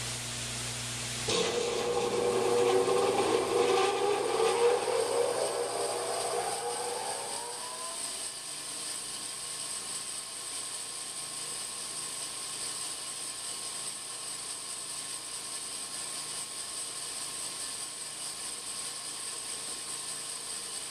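Large bandsaw switched on about a second in, its whine rising in pitch for several seconds as the motor and wheels come up to speed, then running steadily, with no cutting yet.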